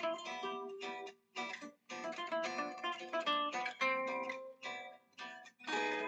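Background music of plucked acoustic guitar: single notes and chords, with a couple of brief breaks.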